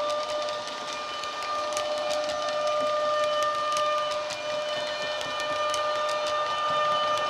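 Model ÖBB Taurus electric locomotive's sound decoder playing its drive sound through the loco's speaker: the traction converter whine holding a steady two-tone note, with quick irregular clicks over it.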